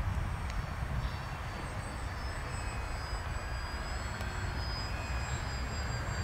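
Radio-controlled scale model aircraft flying overhead, heard as a thin high whine that wavers slightly in pitch, over a steady low rumble.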